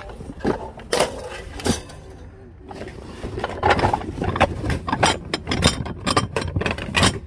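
Knocks and clinks of household goods being handled and rummaged through in a box: a couple of sharp knocks in the first two seconds, then a busy run of clinks and scrapes from about three seconds in.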